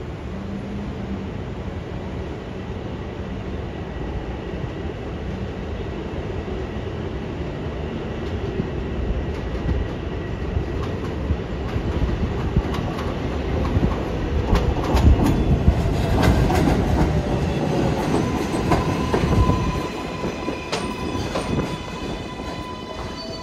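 An R188 subway train on the 7 line comes in, growing louder over several seconds with its wheels clattering over the rail joints. From about two-thirds of the way in, a steady motor whine joins, and it falls in pitch near the end.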